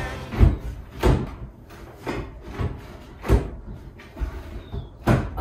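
Plywood drawer on push-to-open runners being pushed in and pulled out of its cabinet while being test-fitted, with a string of wooden knocks and thumps, roughly one a second.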